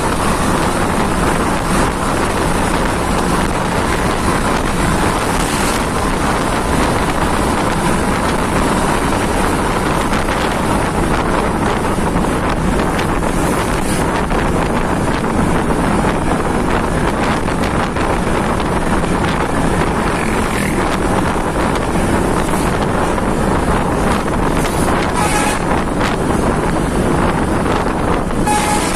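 Steady rush of wind on the microphone and road noise from travelling at speed close behind a moving coach bus, the bus's engine running.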